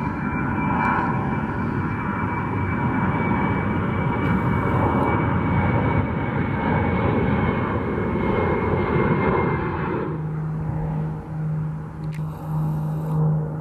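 Boeing 737's twin jet engines at climb power: a broad rush of noise with a steady high fan whine. About ten seconds in it changes abruptly to the steady, lower hum of a Cessna 402C's twin piston engines and propellers, wavering in loudness.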